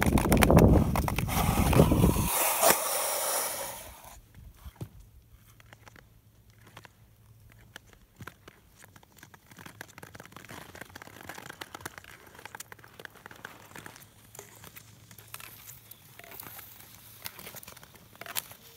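Nordic touring skates on bare lake ice: a loud rush of blades gliding and scraping for the first four seconds, then quiet with scattered faint clicks and crackles.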